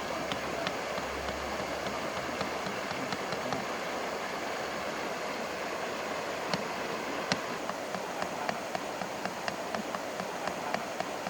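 Steady rushing and trickling of a shallow stream, with many small sharp clicks scattered through it.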